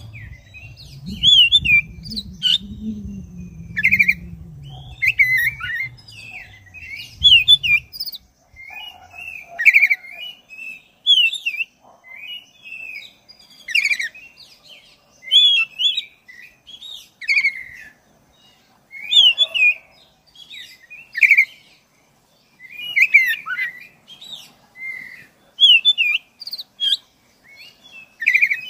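Black-breasted oriental magpie-robin singing a long, unbroken run of short whistled phrases mixed with sharp clicks, about one phrase every second or so. A low rumble swells and fades during the first several seconds.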